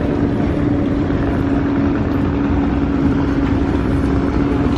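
Long-tail river boat engine running steadily, holding one even pitch throughout.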